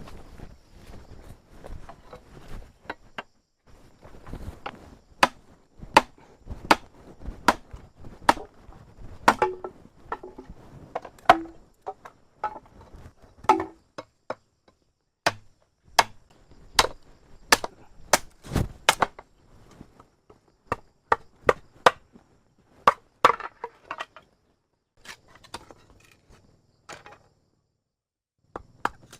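Repeated sharp chopping strikes on wood, about one a second, in runs broken by short pauses.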